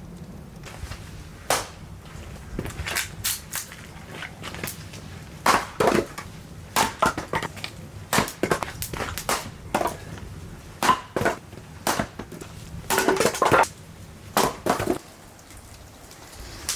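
Wood cracking and snapping: a long run of irregular sharp cracks, some single and some in short crackling clusters, roughly one or two a second.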